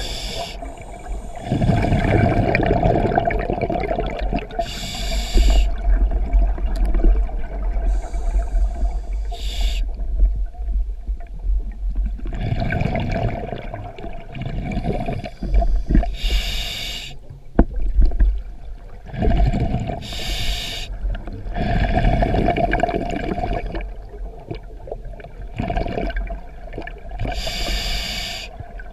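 Scuba diver breathing through a regulator underwater: short hissing inhales alternate with several seconds of rumbling, gurgling exhaled bubbles, in a slow repeating cycle.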